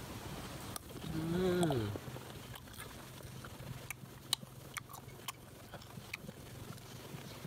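A person chewing crisp raw June plum (ambarella) dipped in chili salt, with a short hummed "mmm" about a second in that rises then falls in pitch and is the loudest sound. Then a run of sharp crunching and smacking clicks from the chewing and finger-licking.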